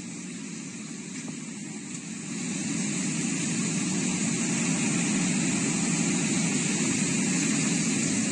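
Steady roar of muddy floodwater rushing over a rubble-strewn road, growing louder about two seconds in.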